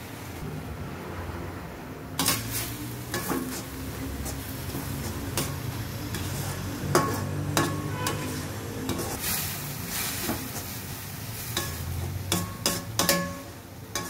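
Slotted steel ladle stirring and scraping grated beetroot in a steel kadai, with repeated clinks and knocks of metal on metal starting about two seconds in, over the sizzle of the beetroot cooking in water.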